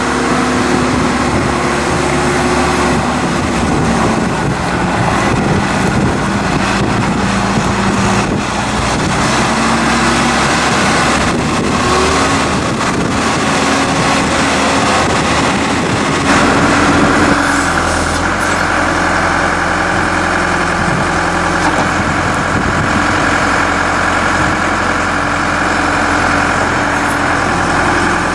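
2007 John Deere 310SG backhoe loader's four-cylinder turbocharged diesel engine running steadily. Its note changes about sixteen seconds in and then holds even.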